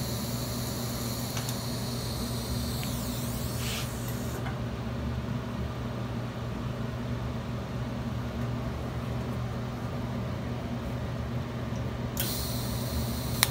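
TIG welding arc running with a high-pitched whine and hiss. About three and a half seconds in, the whine slides down in pitch and stops, leaving only a steady low machine hum. The arc strikes again abruptly near the end.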